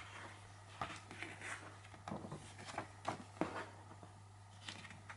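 Paperback picture book being opened by hand and its pages turned: a string of soft paper rustles and light ticks.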